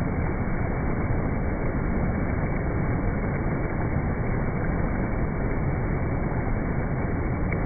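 Shallow river rapids rushing over and between boulders: a steady, unbroken noise of white water.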